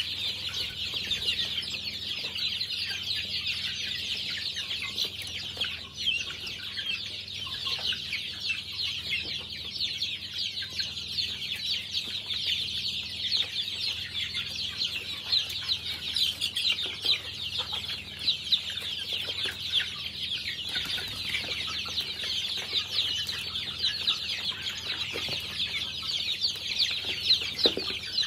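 A flock of young chickens cheeping continuously: a dense chorus of many overlapping high peeps. A few louder short thumps stand out near the end.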